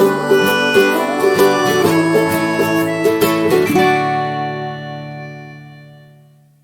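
Plucked-string instrumental music: picked notes for about four seconds, then a final chord that rings on and fades out to silence near the end.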